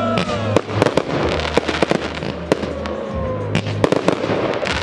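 Aerial firework shells bursting and crackling in quick, irregular succession, with music playing underneath.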